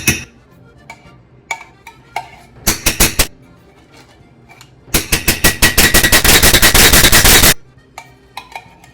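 Metal spoon clattering rapidly against a tin can and pot while scraping out condensed tomato soup: a few quick strikes, then a loud fast rattle lasting a couple of seconds about halfway through.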